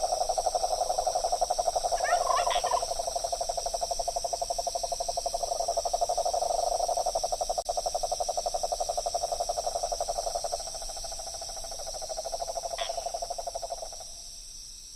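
A chorus of frogs trilling steadily in a fast pulse, which weakens after about ten seconds and fades out just before the end. A short bird chirp comes about two seconds in.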